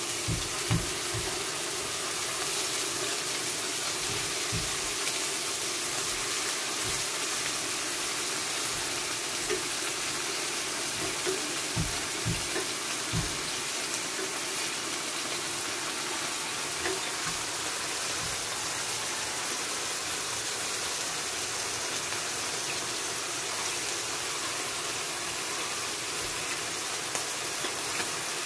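Slices of pork tenderloin sizzling in hot oil in a nonstick frying pan: a steady hiss. Now and then come short light knocks as metal tongs turn the slices.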